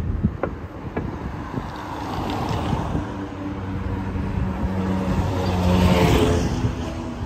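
A motor vehicle passes close by in street traffic. Its engine hum swells to a peak about six seconds in, then fades, over a low traffic rumble.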